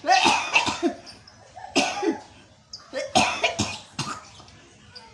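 A person coughing hard in three bouts of several quick coughs each, bringing up phlegm loosened by herbal drops put in the nose during gurah treatment.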